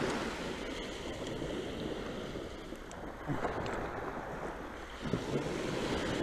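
Small waves breaking and washing up a sandy beach, the wash swelling again about three seconds in and near the end, with wind rumbling on the microphone.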